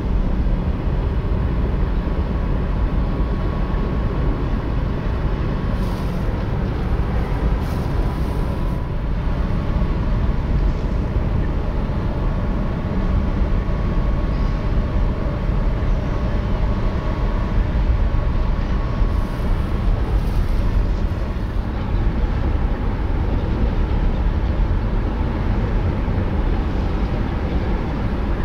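Steady low rumble of a large ferry's engines, with a faint high whine that comes and goes.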